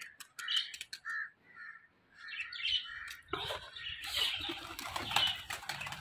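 Pigeons' wings flapping in flight, with a few sharp wing claps in the first second, and birds chirping through the first few seconds; a rougher rustling noise from about three seconds in.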